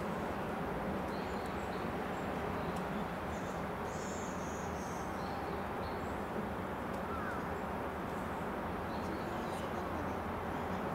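Steady outdoor background noise, with faint, short bird chirps high above it, most of them in the first half.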